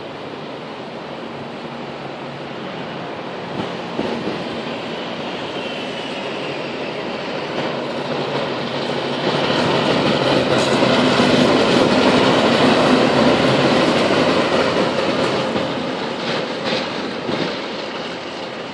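KiwiRail DH-class diesel shunting locomotive 2816 running light, with no wagons. Its engine and wheels grow louder as it passes about ten seconds in, then fade as it moves away, with a few clacks from the wheels over rail joints.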